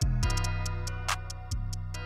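Background music with a deep bass hit at the start and another about a second and a half in, over held tones and steady ticking.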